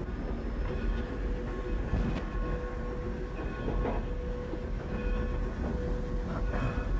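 Cab noise of Southern Pacific 2472, a Baldwin 4-6-2 Pacific steam locomotive under way: a steady low rumble and hiss, a faint steady tone, and a few sharp clanks scattered through.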